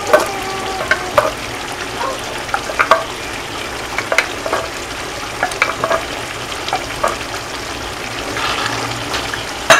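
Pesto and cream sauce sizzling and bubbling in a frying pan, with scattered small pops and clicks. A spatula stirs the sauce near the end.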